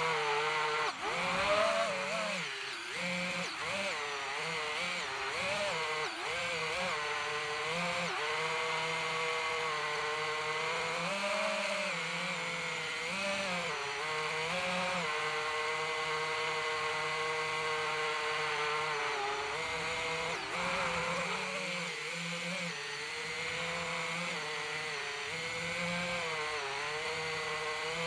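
DJI FPV drone's motors and propellers buzzing in flight, the pitch wavering up and down continually as the throttle changes.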